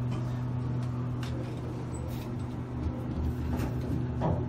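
Steady low hum inside a ThyssenKrupp hydraulic elevator cab as the car sets off downward, with a few faint clicks and knocks.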